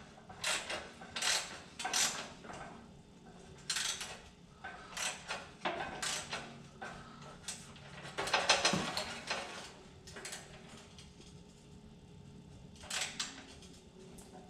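A socket wrench working a seized bolt on a mower's steel frame: irregular metal clicks and clinks in short spells with pauses between, busiest about two-thirds of the way through.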